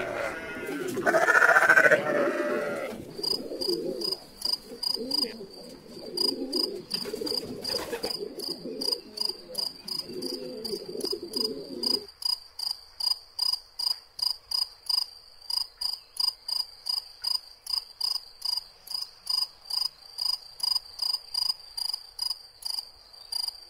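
Animal sound effect: an evenly repeated high chirp, about two to three a second, insect-like. For the first half a lower jumble of animal calls runs beneath it, then stops suddenly.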